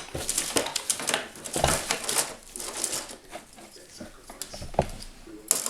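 Loose plastic Lego pieces clicking and rattling against each other as they are handled and sorted, with rustling throughout. The clicks come thickest in the first couple of seconds, then thin out to a few separate clicks.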